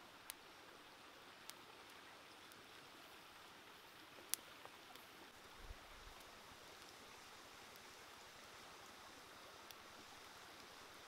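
Pork ribs grilling over a charcoal fire: a few sharp crackles over a faint steady hiss, the loudest crackle about four seconds in.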